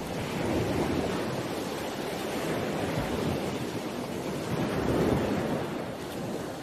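Sea waves washing in a steady rush that swells and eases, loudest about a second in and again near five seconds.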